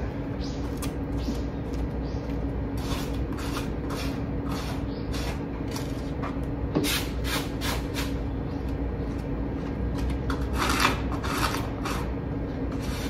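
Scattered rustling and light clattering of things being handled, over a steady low hum.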